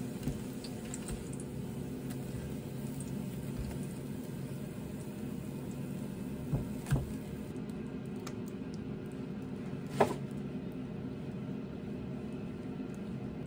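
A steady low appliance hum, with a few soft knocks as fried gimbap slices are set down on a wooden board with chopsticks. Two light knocks come about six and a half to seven seconds in, and a sharper, louder one about ten seconds in.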